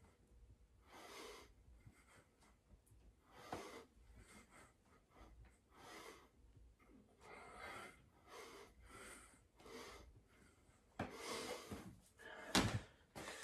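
A man breathing hard from the exertion of push-ups, with a heavy breath out every second or two. Near the end comes a single sharp thump, the loudest sound.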